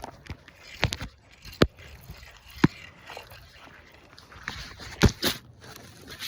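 Scattered sharp clicks and knocks from handling fishing tackle: about five of them, the loudest a close pair just after five seconds in.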